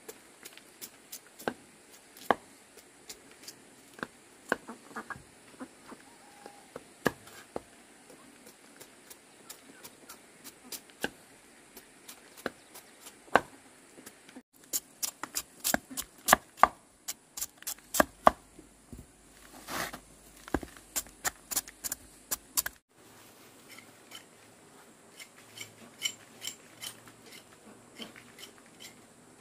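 Irregular sharp clicks and light knocks, sparse at first and coming thick and fast from about halfway through to about three-quarters of the way through.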